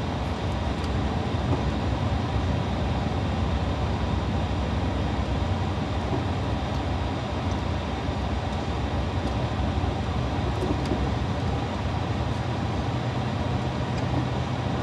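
Steady engine drone and road noise inside a moving bus, with a low hum that steps up slightly in pitch near the end.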